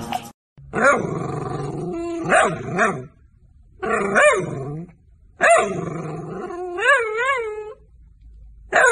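Long-haired dachshund vocalising in four bouts of whining, grumbling 'talking' with its pitch sliding up and down, and a wavering, warbled stretch near the end of the third bout.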